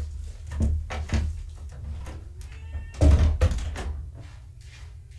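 A few dull knocks and thumps, the loudest about three seconds in, over a low rumble, dying away toward the end.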